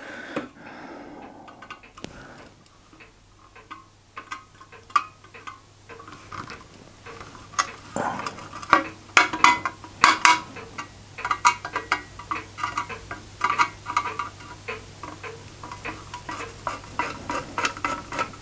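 A small hand tool clicking and scraping on the tiny nuts and tinplate parts of a Mamod model steam engine as the boiler-strap nuts are undone: light metallic ticks and clinks, sparse at first and busier in the second half.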